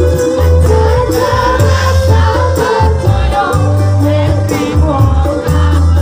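Live band music played loudly over a PA: a sung melody over a steady drum beat with heavy bass pulses and jingling percussion, with many voices singing along.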